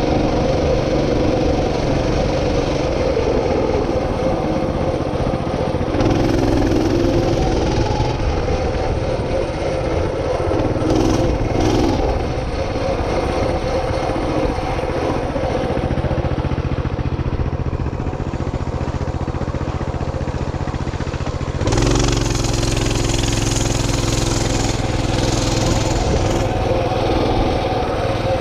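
A small engine running steadily under the moving camera, with wind rumble on the microphone. It grows louder and fuller about three-quarters of the way through.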